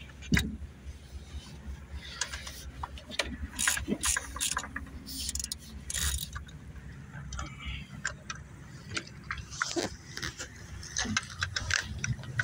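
Ratcheting wrench clicking in short uneven runs as the bolts clamping a fiber-blowing Y block are tightened down.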